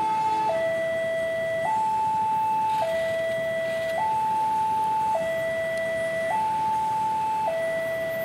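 Railway level-crossing warning alarm sounding for an approaching train: an electronic two-tone hi-lo signal, switching between a lower and a higher tone about every second without a pause.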